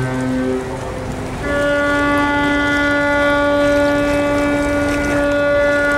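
Ships' horns sounding long blasts, the customary salute to a departing tall ship. A deep horn dies away in the first moment, and about a second and a half in a higher-pitched horn starts and holds one steady note.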